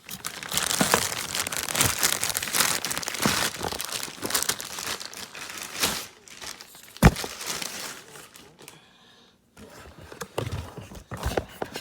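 Packaging crinkling and rustling as an air rifle is pulled out of its box, with one sharp knock about seven seconds in and quieter handling after.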